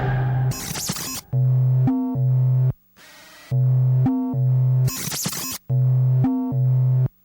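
Electronic music soundtrack: a synthesizer bass line of held notes cut into repeating phrases, with short noisy hits between them.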